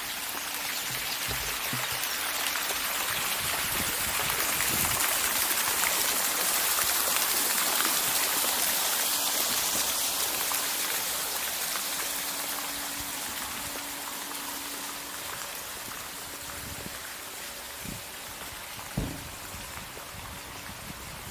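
Fountain water splashing and trickling, a steady rush that grows louder toward the middle and then fades. A single sharp knock sounds near the end.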